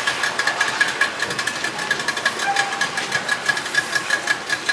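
A boat engine running with a rapid, even knocking rhythm, about seven or eight beats a second.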